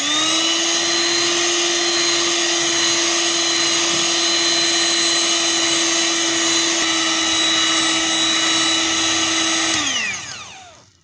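Electric mixer running steadily at high speed, its beater whipping egg, sugar, oil and vanilla into a fluffy sponge-cake batter. The motor whine stays level, then falls in pitch and dies away about ten seconds in as it is switched off.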